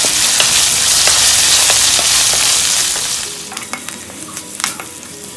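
Garlic, ginger, green chillies and curry leaves sizzling loudly in hot coconut oil while a wooden spatula stirs them in a non-stick pan. About three seconds in the sizzling dies down, leaving scattered sharp clicks and crackles.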